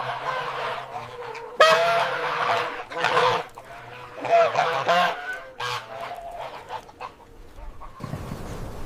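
Domestic poultry calling, several birds with loud honking, squawking calls overlapping in quick succession and dying away near the end.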